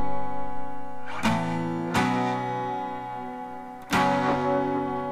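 Background music: acoustic guitar strumming chords, each left to ring out, with fresh strums about a second in, at two seconds and near four seconds.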